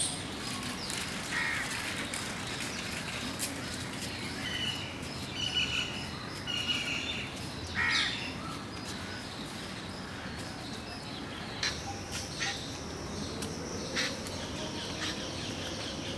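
Birds calling outdoors: several short, repeated calls around the middle, over a steady outdoor background hiss.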